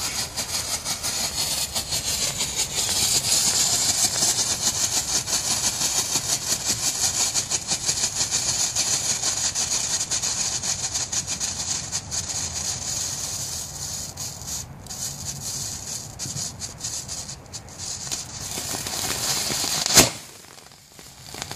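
Strobing fountain firework (an unbranded 'Strobing Pulsar') burning with a steady hiss and a rapid crackle of small strobe pops, then ending in one sharp bang about 20 seconds in.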